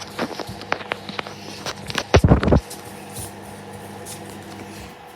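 Microwave oven running with a steady hum, with scattered knocks and a loud cluster of thumps about two seconds in.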